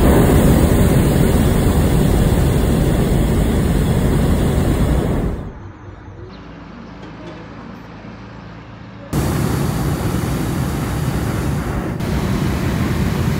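Hot air balloon's propane burner firing overhead: a loud roar for about five seconds that cuts off, then, after a few seconds' lull, fires again.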